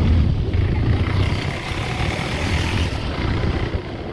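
Low engine rumble with road and wind noise from the open back of a moving goods vehicle, easing off near the end.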